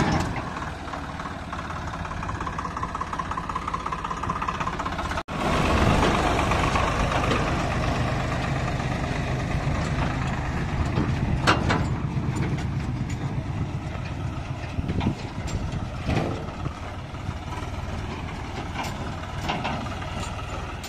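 Swaraj 855 FE tractor's three-cylinder diesel engine running steadily while it works with a tipping trailer. The sound breaks off abruptly about five seconds in and comes back louder, with a sharp knock or two later on.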